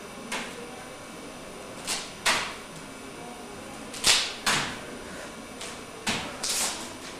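Swishing of bare feet and body sliding and brushing across a large sheet of paper on the floor: three pairs of short swishes about two seconds apart, the loudest near the middle.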